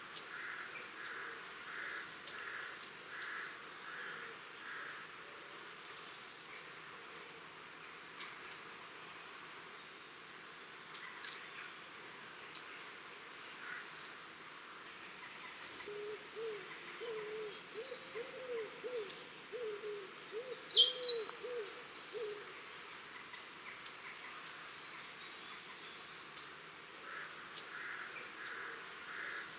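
A flock of long-tailed tits calling: many short, thin, very high-pitched calls scattered throughout, with a louder call about two-thirds of the way through. In the middle, a lower-pitched bird call repeats several times over a few seconds.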